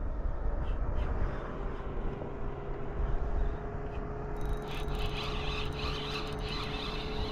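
A distant engine drone: a steady hum that comes in about two seconds in, over a low rumble. About four and a half seconds in, a hissing, crackling sound joins it.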